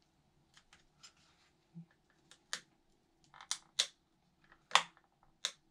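Irregular, fairly quiet plastic clicks and snaps from the clip-on plastic side cover over the rear wheel axle of a Xiaomi Mi 1S e-scooter being worked loose by gloved fingers. The clicks grow louder and more frequent in the second half.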